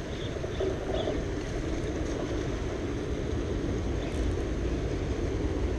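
Singapore MRT train running along an elevated viaduct: a steady low rumble that grows a little louder in the second half, mixed with wind on the microphone.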